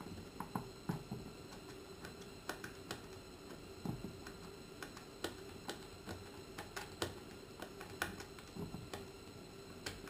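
Scattered, irregular small clicks and taps of plastic cable plugs being handled and connected at the back of a Humminbird 1198 fish finder head unit, over a faint steady hum.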